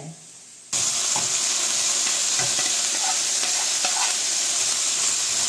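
Red and yellow bell pepper strips dropped into a hot wok with beef strips, frying in a steady sizzle that starts suddenly about a second in, with faint crackles.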